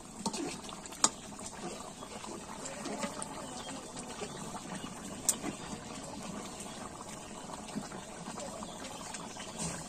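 Chicken curry bubbling in a large black iron wok over a wood fire, a steady simmer with many small pops. Two sharp clicks stand out, about a second in and around five seconds in.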